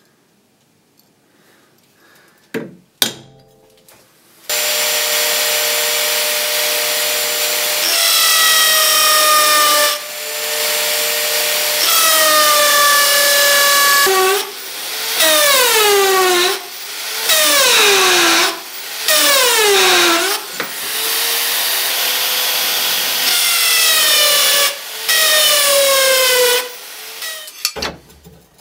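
Drill press boring through a steel cleaver blank: a loud, steady cutting noise with a drone from the machine, and a screeching bit whose pitch slides downward over and over. The noise breaks off briefly several times as the feed eases. A couple of sharp clicks come shortly before the drilling starts.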